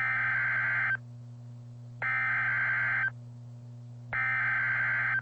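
Emergency Alert System SAME header: three bursts of rapid warbling digital data tones, each about a second long and about a second apart, the coded opening that announces a NOAA Weather Radio tornado warning. A steady low hum runs underneath.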